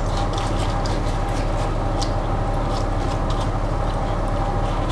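Faint soft dabs and scrapes of a silicone pastry brush dipped into a bowl of honey water and brushed over a roast chicken, over a steady low electrical hum.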